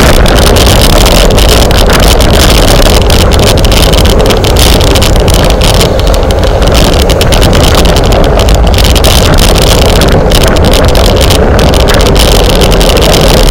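Loud, steady wind noise on the microphone of a camera carried on a racing bicycle at speed, heaviest in the low end.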